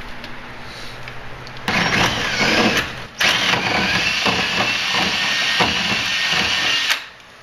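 Power drill boring through a steel pitman arm to open its hole up for 5/8-inch hardware, with a high, steady whine from the bit. It starts about a second and a half in, stops briefly around three seconds, then runs on until it cuts off near the end.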